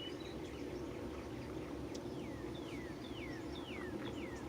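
A songbird calling outdoors: a few short chirps, then a run of about five quick falling whistled notes, roughly two a second, starting about two and a half seconds in. A steady low background hum runs underneath.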